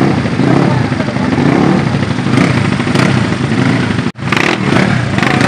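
Tuned big-bore automatic scooter engines running loudly, with a sudden break about four seconds in.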